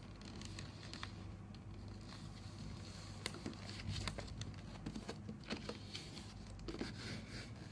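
Paper being folded and creased by hand: soft rustles and scattered faint crisp ticks of the sheet.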